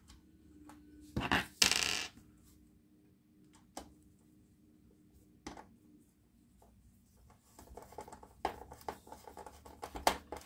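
Hard little clatter of small parts and tools being handled, loudest about a second and a half in. This is followed by a screwdriver turning a screw into the monitor's chassis, which makes a run of small clicks and scrapes near the end.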